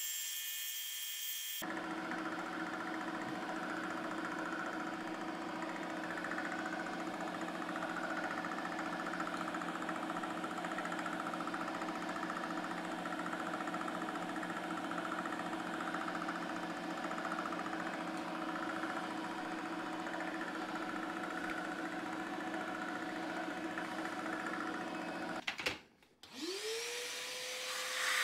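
Vertical milling machine running a long, slender end mill on a very light finishing cut, cleaning out a small fillet in the inside corner of a metal angle: a steady motor hum with a faint wavering whine. Near the end it stops abruptly and a shop vacuum starts up, its whine rising in pitch and then holding steady.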